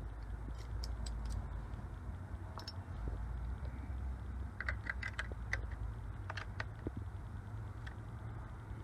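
Scattered light clicks and taps of small parts being handled, with a short run of quick clicks about five seconds in, over a steady low hum.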